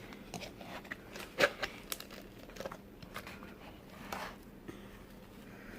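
Scattered light clicks and crinkling of a plastic pot with a lid being handled and opened to get at the slime inside.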